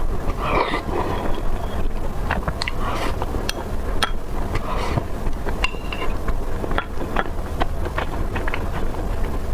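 Close-miked chewing and biting of chicken: irregular crisp clicks and crackles, with some softer wet mouth sounds, over a steady low hum.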